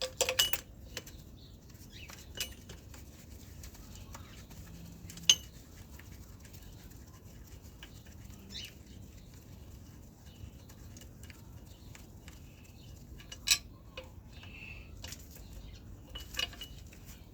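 Scattered sharp metallic clinks and clanks of hand tools against metal, as wrenches and sockets are handled on bolts, with a loud one about five seconds in and another near the middle of the second half.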